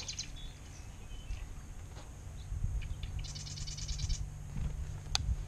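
A bird's rapid rattling trill, about a second long starting about three seconds in, with a shorter one at the very start and a few faint high notes, over a steady low rumble of wind. A single sharp click comes near the end.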